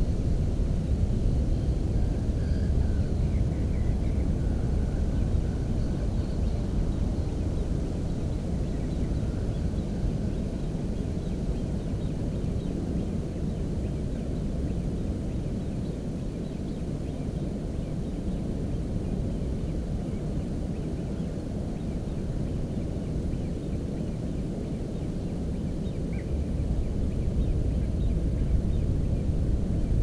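Low, unsteady rumble of wind buffeting the microphone, easing off in the middle and rising again near the end, with a few faint high chirps in the first few seconds and once near the end.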